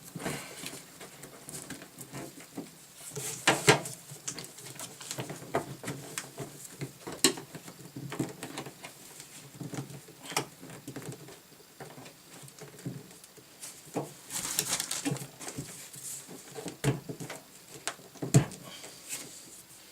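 Scattered handling noises: irregular clicks, light knocks and short rustles, with a sharper knock near the end.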